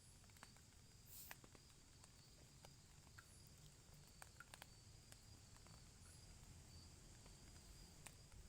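Faint outdoor forest ambience: a steady high-pitched insect drone, with scattered light clicks and ticks.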